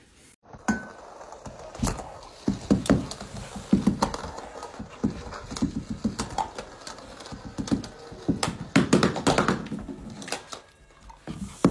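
A dog playing with a light-up ball on a shaggy rug: an irregular string of thuds and taps as it paws and noses the ball, busiest around nine seconds in.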